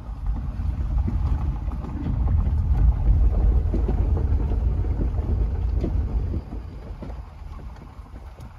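Wind buffeting the microphone: a loud, uneven low rumble that eases off near the end.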